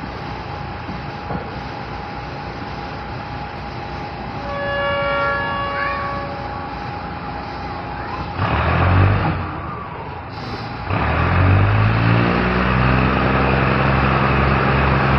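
Steady running noise of a diesel train, with a brief tone partway through. About eight seconds in a loud rush of noise swells up. Near the end a diesel engine revs up, its pitch climbing, then holds steady and loud.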